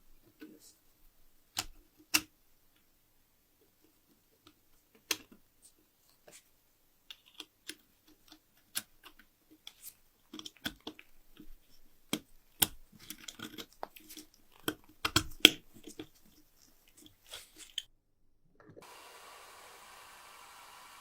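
Irregular sharp clicks and taps of small metal lighter parts being handled and fitted together, coming thicker and louder in the middle of the stretch. Near the end a steady hiss starts.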